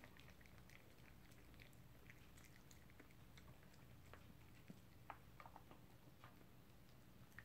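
Faint chewing: a toy poodle gnawing a dental chew, with small scattered clicks and crunches.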